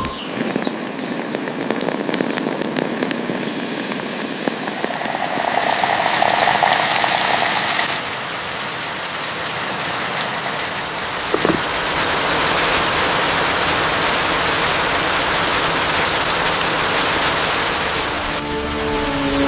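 Steady rain falling in a dense, even hiss, with a brief hum about six seconds in.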